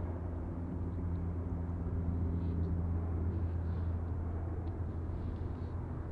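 Steady low engine drone with a constant hum that neither rises nor falls, and a few faint high chirps here and there.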